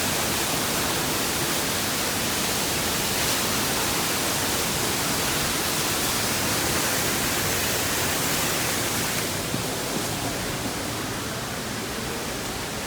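Large, powerful waterfall at close range: a loud, steady rush of falling water, "just roaring", with its spray in the air. It eases slightly about nine seconds in.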